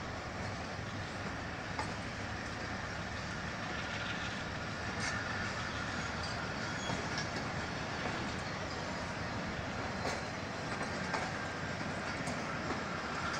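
Pakistan Railways passenger coaches rolling past on the move, a steady rumble of wheels on the rails with sharp clicks every so often as the wheels cross rail joints.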